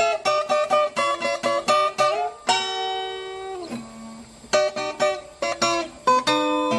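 Viola caipira, the Brazilian ten-string folk guitar, playing an instrumental moda de viola with quick plucked runs. About halfway through it holds a chord, lets it ring and fade, then the picking resumes.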